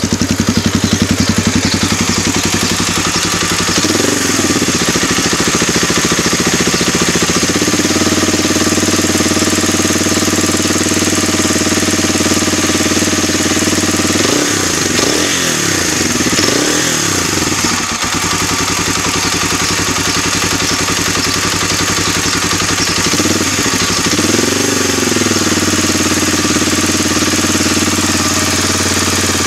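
Suzuki DR-Z250 single-cylinder four-stroke engine idling with a bad noise whose cause the owner cannot identify. Its speed briefly rises and falls a few times, about four seconds in, around the middle, and again near the end.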